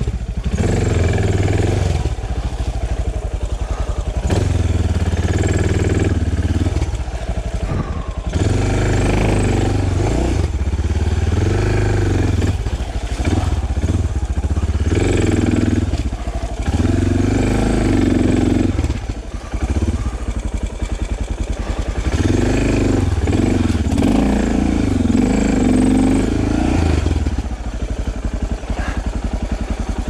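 Suzuki DR650's 644 cc single-cylinder engine working under load off-road, the revs rising and falling with the throttle and easing off briefly about three times.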